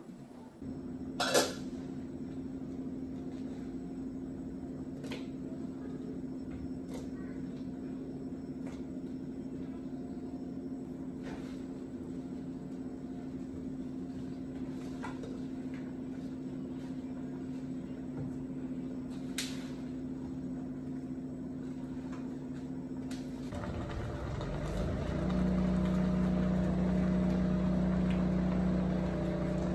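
A steady machine hum, with scattered light clicks and knocks of a ladle and vegetables against a metal cooking pot, the sharpest about a second in. About 24 s in, a louder, lower hum takes over.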